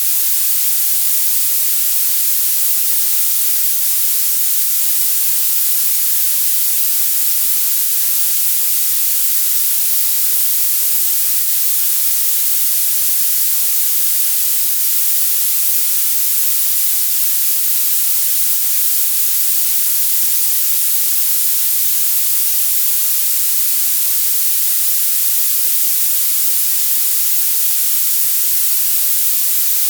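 Violet noise: a steady, very bright hiss, strongest in the highest pitches with almost no low end, unchanging throughout.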